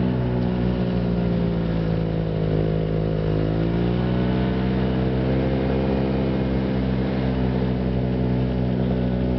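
Snowmobile engine running under throttle as the machine is ridden, heard from the rider's seat. Its pitch sags slightly, dips about three seconds in, then climbs again over the next couple of seconds and holds steady.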